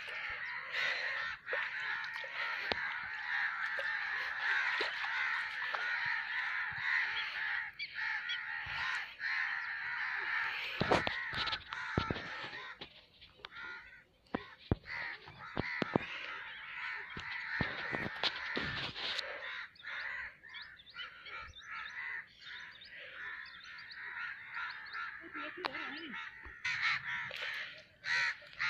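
Many birds calling at once in a dense chorus, which thins out about two-thirds of the way through, with a few sharp thumps near the middle.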